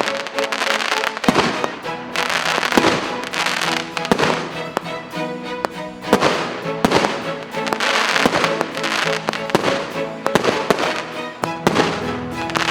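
Multi-shot fireworks cake of 1.2- and 2-inch tubes firing: rapid, irregular bangs that come in waves, with background music under them.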